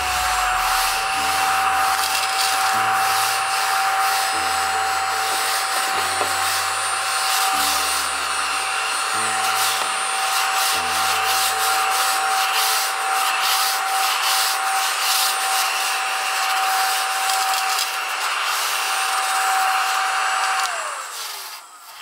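Battery-powered desktop cleaner (Sonic 'Suzy') running with a steady motor whine while its brushes scrub across a cloth mouse pad, a rough rubbing noise. Near the end it is switched off and the whine falls away.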